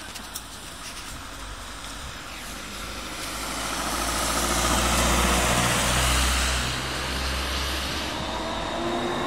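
PESA Swing low-floor tram running past on its rails: a low rumble that grows to its loudest about five seconds in, then eases, with thin whining tones near the end.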